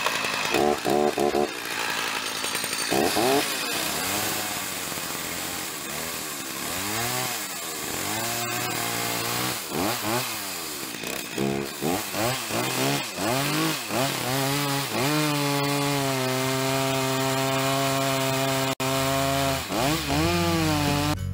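Chainsaw engine revving up and down repeatedly, then held at a steady high speed for a few seconds near the end, as the saw works into an old Douglas fir log.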